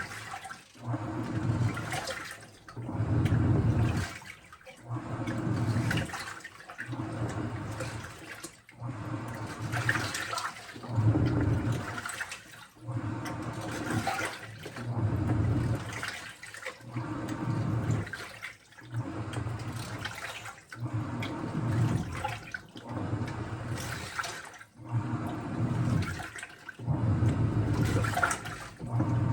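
Washing machine running with water sloshing in the drum, in surges that come about every two seconds with short quiet gaps between.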